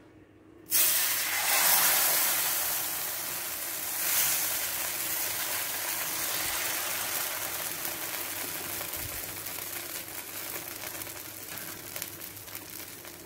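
Dosa batter sizzling on a hot dosa griddle: a sudden hiss starts a little under a second in as the batter hits the pan, loudest in the first few seconds, then settles into a steady sizzle that slowly fades as the batter cooks.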